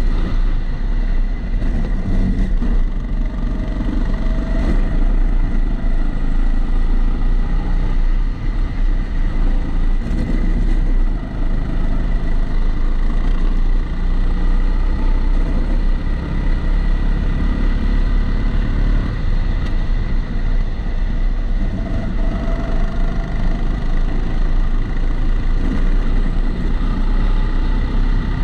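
Kart engine running on track, recorded onboard through a waterproof camera housing, its pitch rising and falling as the kart accelerates and slows. A low rumble sits under it, with a steady high tone over it.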